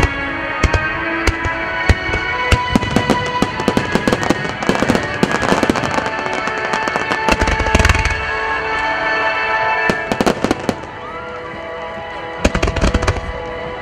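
Starmine firework barrage fired in time to music: rapid volleys of sharp bangs and crackles in clusters over steady music, with a deep boom about eight seconds in.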